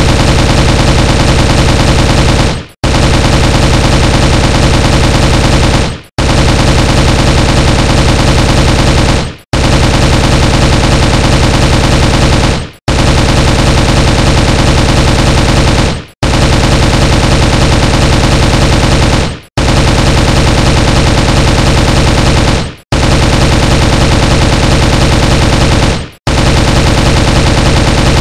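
M16 rifle firing on full automatic in long bursts of about three seconds each, with a brief break between bursts, repeating steadily.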